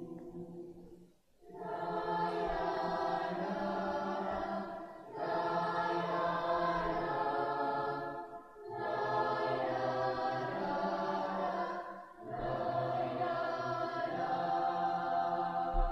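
Large choir singing in harmony, in long held phrases of three to four seconds each with brief breaks between them.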